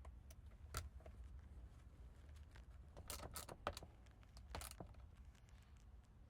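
A few light, irregular metallic clicks and clinks of tools and small parts being handled during work on the vehicle.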